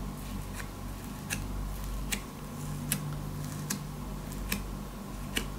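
Pink glitter slime being pressed and poked with a fingertip, giving small sharp clicks and pops about once a second over a low steady hum.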